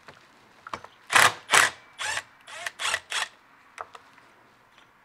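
Compact cordless screwdriver whirring in about six short bursts in quick succession, backing out the screws of a plate on a chainsaw.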